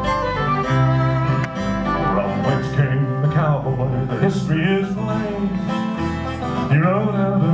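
Western string band playing the instrumental introduction of a cowboy song, with acoustic guitar leading.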